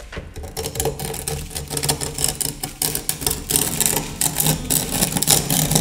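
Metal scraper spatula rasping rapidly up and down a crack in a rough, floated render wall, opening the crack into a V shape. Rapid, repeated scraping strokes start about half a second in.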